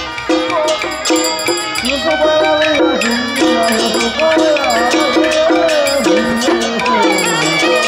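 Traditional Taiwanese temple procession music: a shrill reed-horn (suona) melody with bending, sliding pitch over steady percussion strokes.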